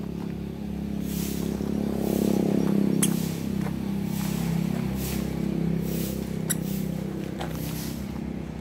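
A toddler's small, uneven footsteps crunching on loose gravel, a few scattered steps. Under them, a steady low engine hum runs throughout.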